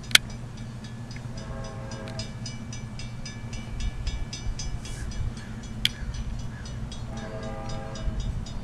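Distant locomotive horn sounding two blasts of about a second each, several seconds apart, over a steady low rumble. A rapid high ringing runs between the blasts, and there is a sharp click just after the start.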